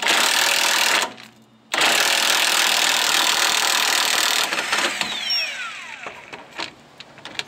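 Cordless 24-volt brushless impact wrench hammering on a car's lower strut bolt to break it loose, in two long bursts with a short pause between. After the second burst a falling whine is heard, followed by a couple of short blips near the end.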